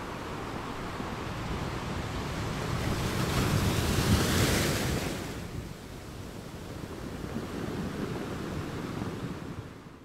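Ocean surf: a wave swells and breaks about four seconds in, then drains away, with a smaller swell near the end before the sound fades out.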